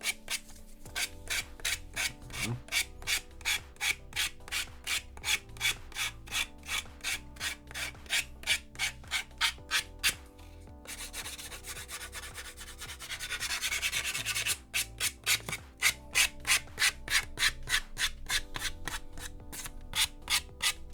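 Sanding block rubbed back and forth along the edge of a primed plastic model-kit part, in quick even strokes about three a second, smoothing off the sprue gate. Around the middle the strokes give way to a few seconds of steadier rubbing, then the back-and-forth rhythm resumes.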